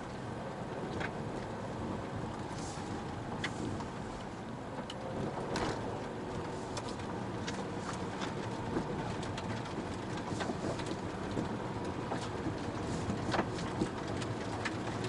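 A car driving slowly over an unpaved gravel road, heard from inside the cabin: steady engine and road noise with scattered ticks and knocks of stones under the tyres.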